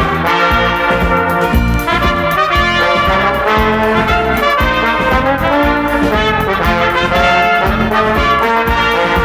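Brass-led orchestra playing an upbeat march as title music, with trumpets and trombones out in front.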